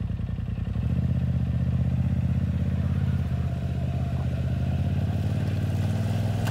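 Polaris RZR Turbo side-by-side's twin-cylinder engine running at low, steady revs as the machine creeps forward, picking up slightly about a second in.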